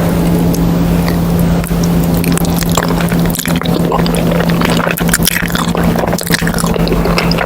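Close-miked wet, sticky chewing and squishing of cheesy food, with many small smacks and crackles, over a steady low hum.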